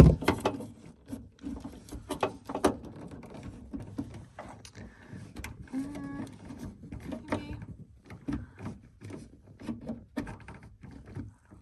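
Screwdrivers clicking, tapping and scraping against the plastic trim and the rear door latch mechanism of a 2009 Nissan Cube as they are worked to lever the stuck latch, in irregular knocks.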